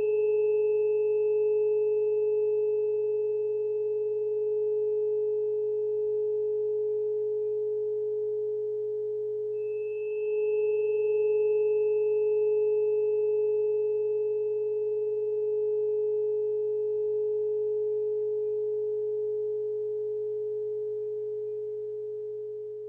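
A blend of steady electronic sine tones: a strong held middle tone with fainter low and high tones under and over it, played as the planetary frequency harmony for Venus and Neptune. The higher tones fade and swell back in about halfway through.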